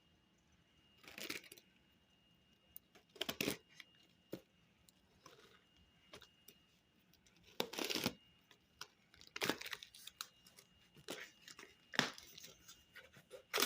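A light mail package being torn open by hand: short bursts of tearing and crinkling packaging, several times, the loudest about eight seconds in.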